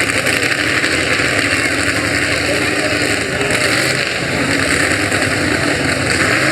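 Pickup truck engine running hard at high revs, its pitch holding fairly steady with slight wavering, typical of a truck pulling a sled in a truck pull.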